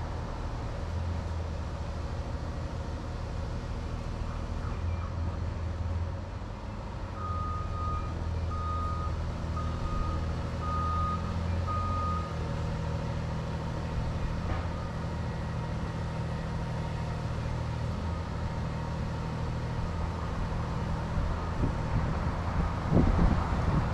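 Diesel engine of a Cat 303.5 mini excavator running steadily. A back-up alarm beeps five times about a second apart in the middle, and a few knocks come near the end.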